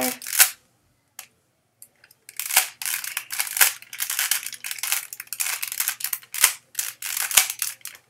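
A 3x3 Rubik's cube turned rapidly by hand, its plastic layers clacking as they snap round. One click, a short pause, then a fast, dense run of clacks from about two seconds in until just before the end.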